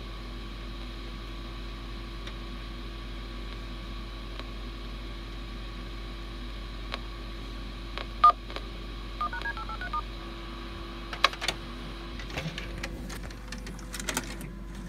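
Touch-tone telephone dialing on a VHS tape's soundtrack: one sharp beep about eight seconds in, then a quick run of dial tones, over a steady hum. A few sharp clicks and knocks follow near the end.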